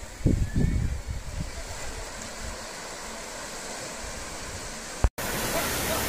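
Steady rush of sea surf washing on a beach, with a few low thumps of wind on the microphone in the first second. A brief break about five seconds in, then the rush goes on a little louder.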